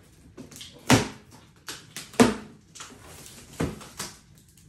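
Packing tape being slit and peeled on a cardboard box and the box's flaps pulled open: four sharp rips and cardboard cracks, the loudest about one and two seconds in, with softer rustling and scraping between them.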